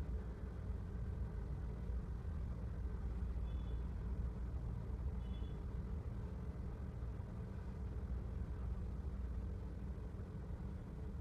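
A steady low mechanical rumble with a faint hum, with two brief faint high chirps about two seconds apart near the middle.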